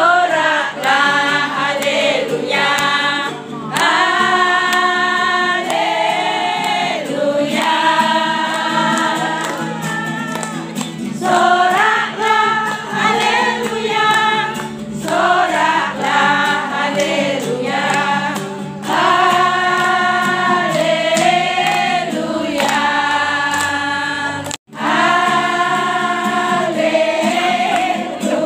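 A group of voices singing a song together, choir-like, over a steady musical accompaniment. The sound breaks off for an instant about twenty-five seconds in.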